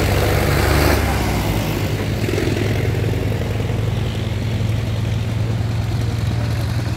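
Vintage tractor engine chugging as the tractor drives past close by. It is loudest in the first second, then runs on as a steadier, lower engine sound.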